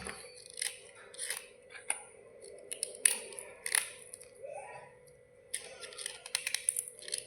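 Crisp, sharp scraping and crunching of white slate pencil bars being cleaned, in short separate strokes with a brief lull about halfway through.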